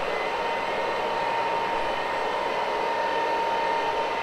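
A 300 RPM rotary floor machine running steadily with its cleaning pad scrubbing low-pile olefin loop carpet: a constant motor hum with a steady whine over the noise of the pad on the carpet.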